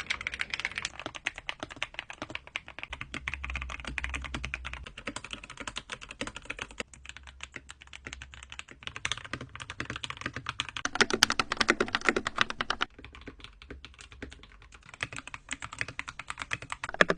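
Fast typing on custom mechanical keyboards: dense, rapid keystroke clacks. The keystroke sound shifts abruptly several times, with a louder, deeper stretch of keystrokes about two-thirds of the way through.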